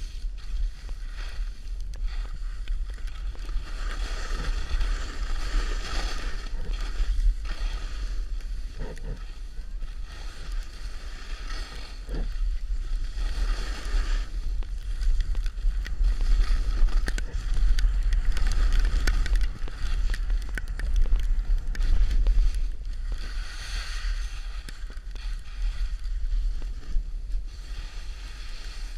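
Wind buffeting a GoPro's microphone while skiing downhill: a heavy, steady rumble. Over it, the hiss of skis scraping over snow rises and falls every few seconds with the turns.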